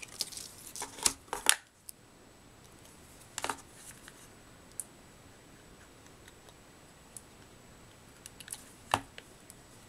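Scissors snipping through paper while cutting out a shape by hand: a quick run of snips in the first second and a half, then single snips every second or two, with a louder one near the end.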